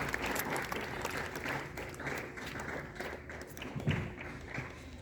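Assembled schoolchildren clapping, the applause thinning out and dying away toward the end. A low thump comes about four seconds in.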